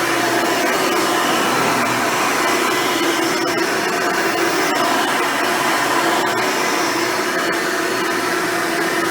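Hoover Elite upright vacuum cleaner with a dual row brush roll running steadily while cleaning: a steady motor whine over a rushing noise.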